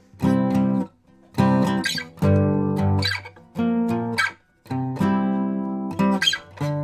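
1960s Epiphone Texan all-solid spruce-and-mahogany acoustic guitar strummed in a run of chords, each struck and ringing about half a second before being damped, changing chord every second or so. The strings sit low on the freshly reglued bridge.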